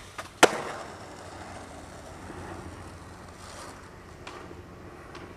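Skateboard landing a flip trick with one sharp clack about half a second in, then the wheels rolling steadily over pavement with a few faint ticks.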